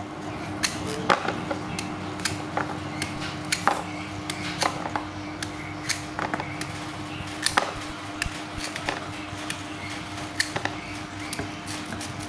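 Hammer striking steel in irregular sharp blows, about one or two a second, over a steady low hum.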